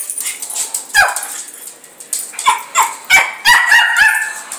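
Short, high, dog-like yelps and barks: one drops in pitch about a second in, then a quick run of five or six comes in the last two seconds.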